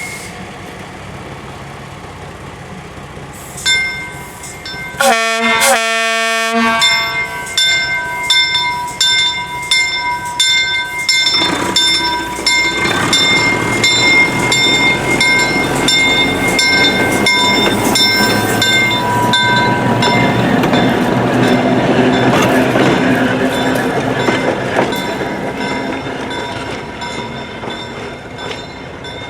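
East Broad Top M-1 motor car's bell ringing with steady, even strokes, with two short horn blasts about five seconds in, the standard signal that it is about to move forward. After that its engine and wheels on the rail grow louder as it runs past, then ease off near the end.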